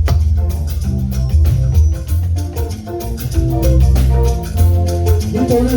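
Live band playing an instrumental passage with a steady beat and strong bass.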